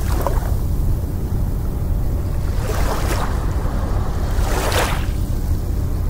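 Harbour ambience: water washing in three surges over a steady low rumble.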